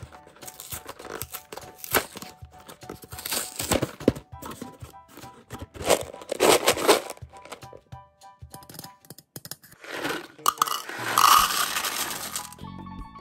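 A cardboard box of Mike and Ike candy handled with long fingernails: tapping, clicking and tearing at the box, and the paper inner bag crinkling open. Near the end the chewy candies pour out and rattle into a clear plastic cup.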